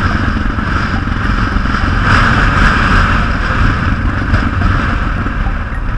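Yamaha XT600 single-cylinder motorcycle engine running as the bike rides along a street, with a steady rush of riding wind over it.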